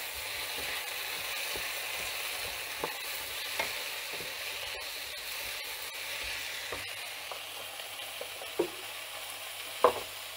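Chopped vegetables sizzling in oil in a non-stick frying pan while being stirred with a wooden spoon, a steady hiss with a few short knocks of the spoon against the pan.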